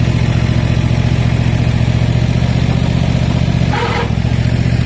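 Cub Cadet ZT1 Ultima zero-turn mower engine running steadily, with a brief squeal about four seconds in from the very loose belt that drives the hydraulic pump (a Chevy power steering pump) for the excavator attachment.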